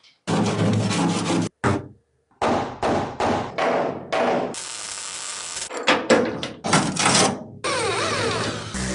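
Restoration workshop sounds in short, abruptly cut pieces: knocks, scraping and rubbing on metal and wood, with brief silent gaps between them.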